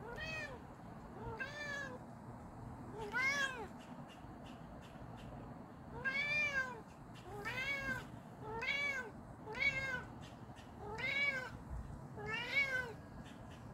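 Domestic cat meowing repeatedly, calling to another cat: about nine short meows, each rising then falling in pitch, one to two seconds apart with a longer pause after the third.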